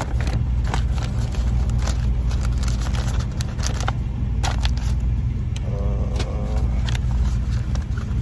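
A car engine idling with a steady low rumble, under a run of small clicks and rustles from rummaging through papers and compartments inside the car.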